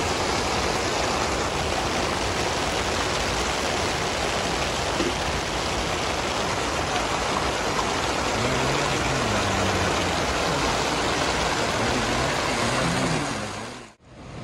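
Steady rain falling, an even hiss, which fades out briefly to silence near the end.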